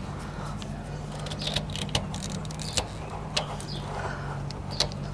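Sharp metallic clicks and clinks from a sway bar quick-disconnect link and its lock pin being handled and fitted, over a steady low hum.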